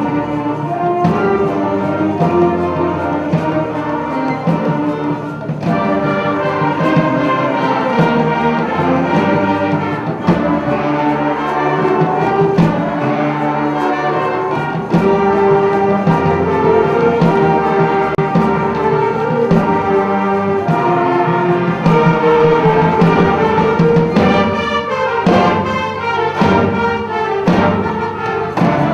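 High school concert band playing live: sustained brass and woodwind chords over sharp percussion strikes, with a quicker run of percussive hits near the end.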